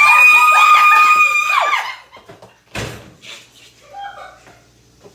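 A woman's high-pitched scream, held on one note for about two seconds and then cut off, followed by a single sharp knock about three seconds in.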